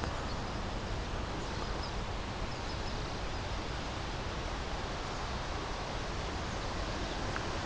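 Steady outdoor background noise, an even hiss over a low rumble, with a few faint high chirps in the first few seconds.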